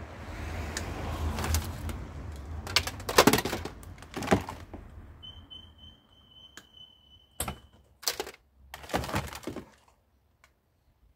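Clattering and knocking of plastic appliances and electrical cables being handled and pulled about in a car boot, in irregular bursts, the loudest about three seconds in. A low rumble underneath stops about six seconds in, and a steady high tone sounds for about two seconds midway.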